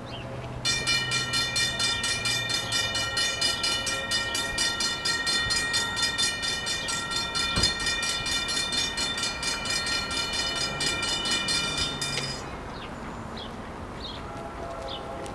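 Railroad grade-crossing warning bell ringing in rapid, even strokes. It starts abruptly just under a second in and cuts off abruptly about three seconds before the end.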